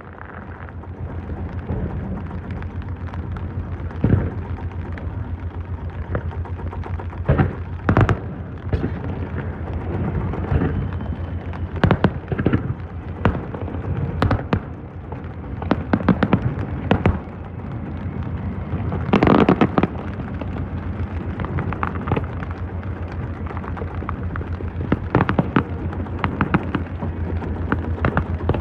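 Fireworks bursting overhead at irregular intervals, a dozen or so sharp bangs with a crackling cluster about two-thirds of the way in, over the steady low hum of the boat's engine idling.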